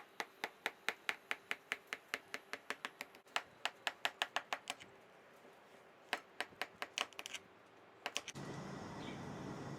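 Rapid light clicks, about five a second, stopping and starting twice, then a steady hiss from about eight seconds in.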